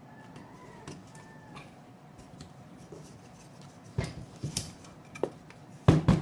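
Sharp clicks and knocks of small metal tools and screws being handled while a graphics card is taken apart, scattered through the second half with the loudest cluster near the end. A faint pitched sound is heard early on.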